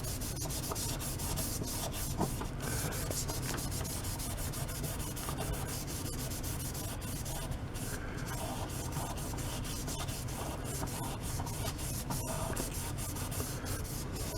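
A wet Scotch-Brite scouring pad scrubbing a ceramic sharpening stone with cleanser, a steady scratchy rubbing. The stone is being cleaned of the steel filings loaded into it from sharpening.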